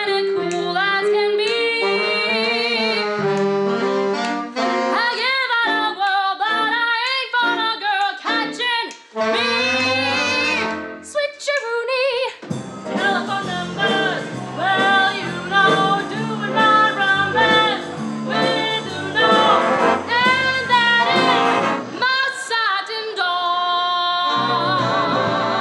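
A young woman singing a jazz song with vibrato. About halfway through, a student jazz band with saxophones and brass comes in behind her and plays fuller, with low notes under the voice.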